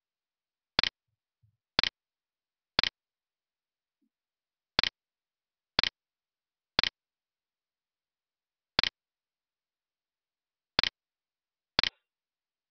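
Short, sharp, identical ticks, about one a second in a steady beat, with a few beats skipped.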